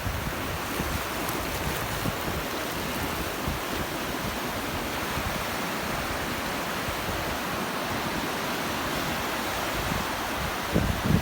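Sea surf breaking on a beach, a steady wash of waves. Wind buffets the microphone near the end.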